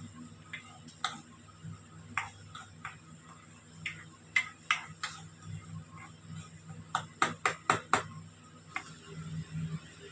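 Irregular sharp taps and clinks of cooking utensils, with a quick run of about five taps around seven to eight seconds in.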